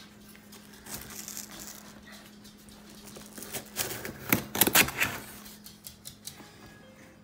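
Cardboard shipping box being cut open and handled: a knife scraping through packing tape, then a cluster of sharp knocks and clicks against the box about four to five seconds in.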